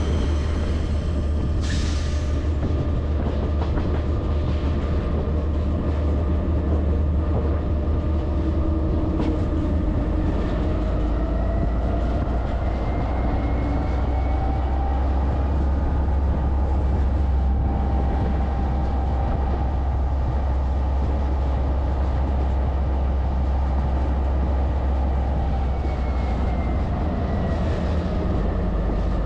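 Freight train running along the track, heard from on board: a steady low rumble with wheel-on-rail noise, and through the middle a faint whine that slowly rises and falls in pitch.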